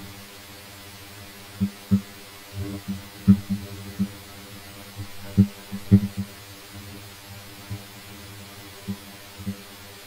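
Steady electrical mains hum from the recording microphone, with a scatter of short, irregular low knocks from keyboard typing and mouse clicks picked up through it.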